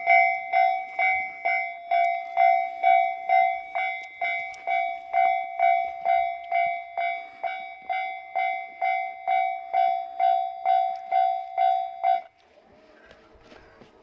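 Japanese railway level crossing warning bell ringing 'kan-kan' in an even rhythm of about two strikes a second, warning of a train. It stops suddenly about twelve seconds in, when the warning ends.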